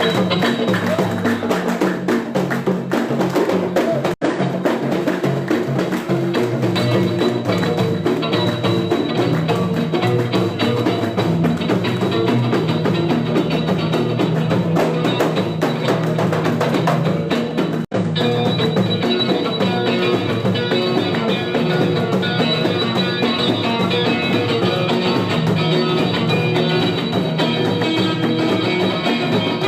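Music with drums and percussion keeping a steady beat over a bass line. It cuts out for an instant twice.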